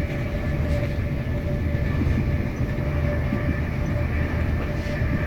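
Passenger train in motion, heard from inside a carriage: a steady low rumble of wheels on the track with a faint steady whine above it.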